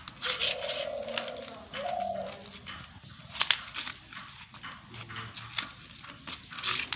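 A pigeon cooing, two low hums near the start, over short wet clicks and squelches of hands mixing minced chicken paste.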